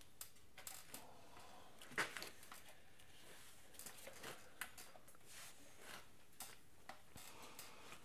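Faint scattered clicks and light taps, with a sharper click about two seconds in: small parts and tools being handled while a carburetor is refitted.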